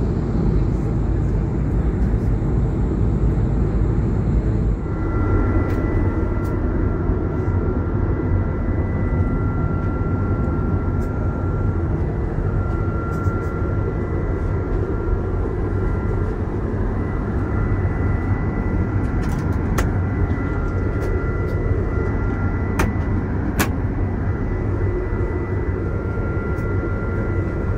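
Airbus A220 airliner's steady engine and airflow roar, heard from inside the cabin. About five seconds in the sound shifts, and from there two steady high whines run over the roar, one of them dropping out now and then.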